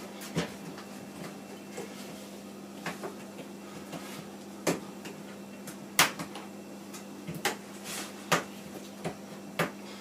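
Irregular light clicks and knocks of hands working the rubber door seal of an LG front-loading washing machine back over the lip of the drum opening, the sharpest knock about six seconds in.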